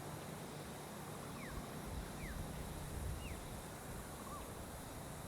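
A bird calling in short, falling notes, three clear ones in quick succession and a fainter lower one after, over steady low outdoor rumble.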